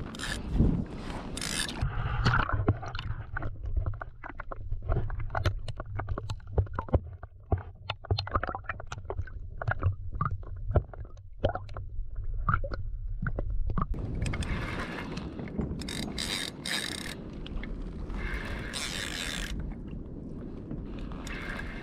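Muffled underwater sound: a low rumble with many scattered sharp clicks. About two-thirds of the way through it switches to open-air wind on the microphone and water splashing around a kayak.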